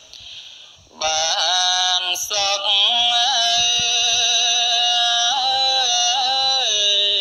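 Buddhist devotional chanting: one melodic line of long held notes that step up and down. It comes back in about a second in, after a short quieter gap.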